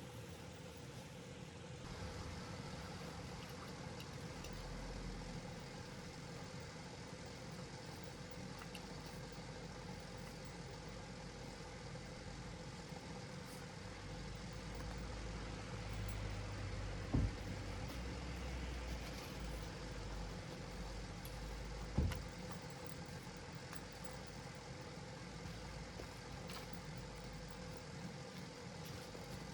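A vehicle engine running steadily at idle, with two short knocks about five seconds apart in the second half.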